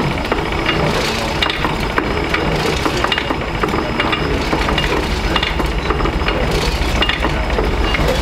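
Fire burning in the twin furnaces of a Lancashire steam boiler: a steady low roar with irregular crackles and clicks.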